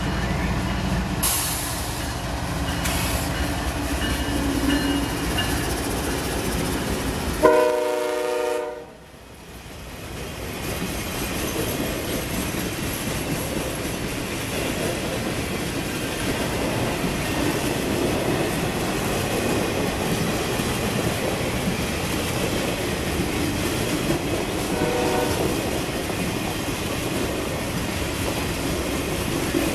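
Norfolk Southern RoadRailer freight train: one short locomotive horn blast about eight seconds in, then the steady rolling noise of the RoadRailer trailers passing on their rail bogies.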